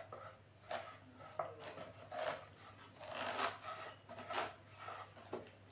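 Kitchen knife cutting into a whole ash gourd, sawing through the waxy rind and firm flesh in short scratchy strokes roughly once a second.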